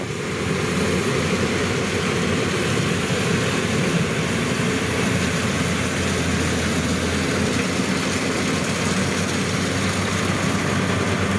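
Kubota DC-105X rice combine harvesters cutting and threshing, their 3.8-litre Kubota V3800 diesel engines running with a steady, unbroken drone.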